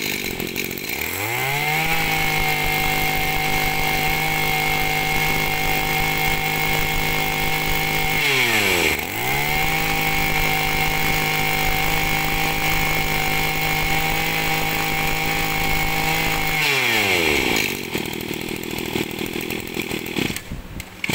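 Maruyama MB23 brush cutter's 23cc two-stroke engine revved from idle up to full throttle and held there, let off and revved up again about eight seconds in, then dropped back to a rough idle about seventeen seconds in.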